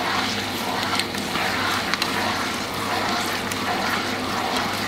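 Seafood pasta sauce sizzling and bubbling in a frying pan while linguine is stirred through it, with a few light clicks of the utensil against the pan.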